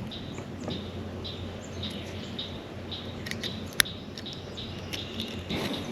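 Small birds chirping in short, repeated notes over a steady outdoor hiss, with one sharp click a little under four seconds in.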